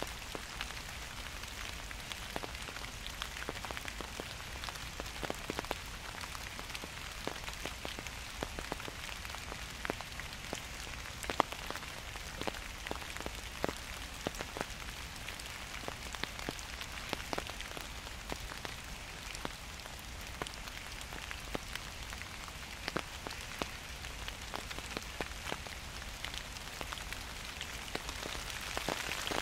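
Gentle rain falling steadily: an even hiss with many separate, sharp drop hits scattered through it.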